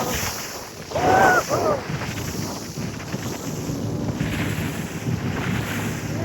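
Tour boat's motor running steadily, with wind buffeting the microphone and water rushing past the hull. About a second in there is a short, high, wavering cry.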